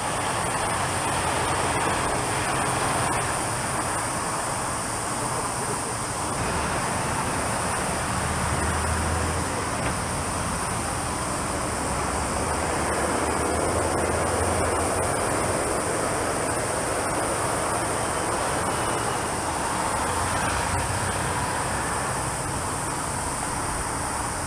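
Engines of a three-engined McDonnell Douglas MD-11 freighter heard from a distance as it rolls along the runway after landing: a steady roar with a low hum beneath, and a steady high-pitched hiss above it.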